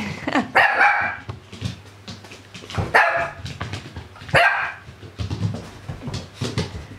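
Kooikerhondje puppy barking: three short, high barks spaced a second or more apart, with softer sounds in between.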